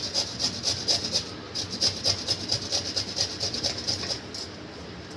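Fresh root, raw turmeric and ginger, being grated on a hand grater: quick, even scraping strokes, about four or five a second, that stop about four seconds in.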